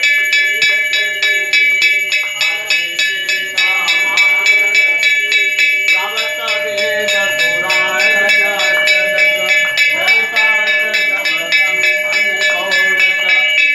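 A ritual bell rung in a fast, even rhythm through the whole stretch, its ringing tones steady, while a group of voices sings a devotional chant over it, as during an aarti.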